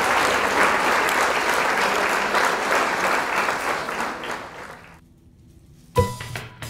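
Applause, steady at first and then fading out about five seconds in; music begins about a second later, near the end.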